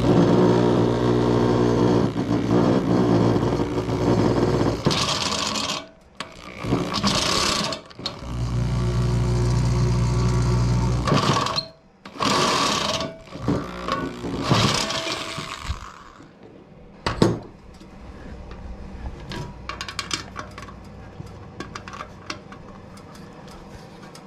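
Corded electric drill cutting through the tumbler's metal frame plate with a step drill bit, widening the bearing holes. It runs for about five seconds, then in short bursts, runs again for about three seconds, and gives more short bursts. After that there are only scattered light clicks.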